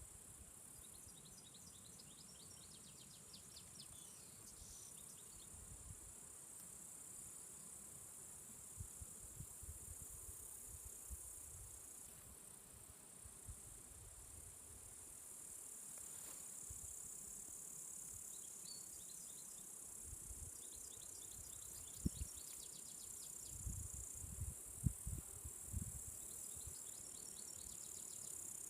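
Faint, steady, high-pitched chorus of insects chirring, with a few short runs of rapid ticking chirps. Scattered low rumbles and thumps come and go underneath.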